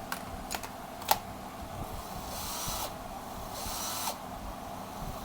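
National cordless drill test-run in two short bursts about a second apart, its motor whirring for roughly half a second each time, after a few sharp clicks near the start.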